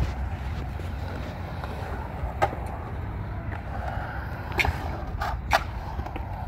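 Skateboard wheels rolling and carving on a concrete bowl, a steady low rumble, with three sharp clacks through the middle and second half.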